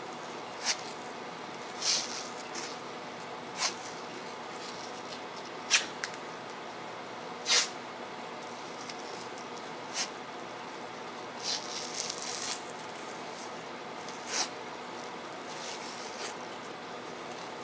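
White cloth athletic tape being pulled off the roll, torn and pressed onto a wrist and hand: a dozen or so short, sharp rips spaced a second or two apart, with a cluster of them about twelve seconds in.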